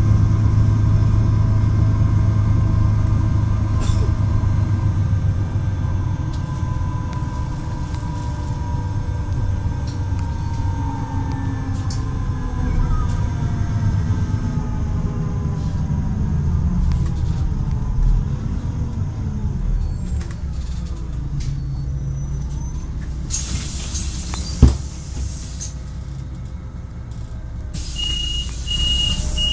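Solaris Urbino 12 city bus slowing down, its engine and drivetrain whine falling in pitch. A loud burst of compressed-air hiss ends in a sharp click about two-thirds of the way in, and near the end the door warning beeps as the doors move, with more air hiss.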